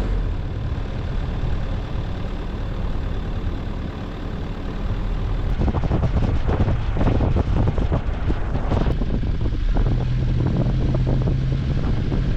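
A four-wheel drive running at low speed on a gravel track, its engine a steady low drone. From about halfway through, loud irregular crackling noise comes in over the engine.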